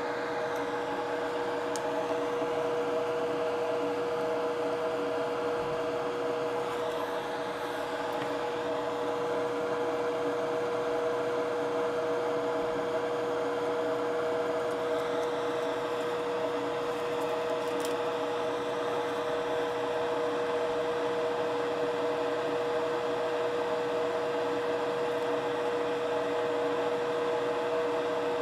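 Bench fume extractor's fan running with a steady whir and a constant hum tone.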